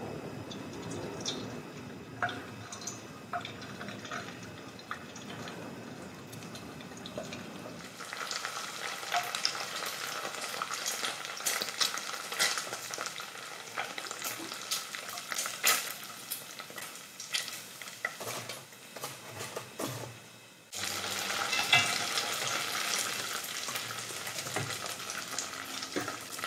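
Paste-coated strips deep-frying in oil heated to about 160 °C, a steady sizzle with scattered crackles that grows brighter and busier about a third of the way in. Near the end a wire skimmer stirs them in the pot.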